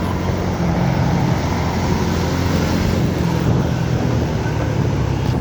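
Steady engine drone of motor traffic with road and wind noise, heard from a moving motorcycle.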